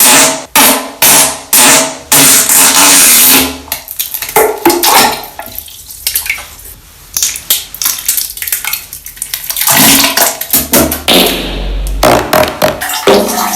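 Wet farts and explosive-diarrhea sounds: a fast string of short loud bursts, a softer, drawn-out noisy stretch in the middle, then short bursts again near the end.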